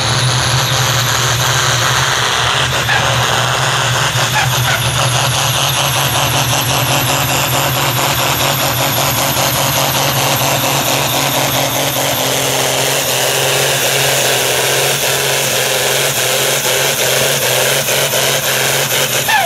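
Diesel engine of a modified John Deere 4040 pulling tractor running flat out under full load as it drags a weight-transfer sled, a steady low drone with a high whine over it. The engine note falls away at the very end as the pull finishes.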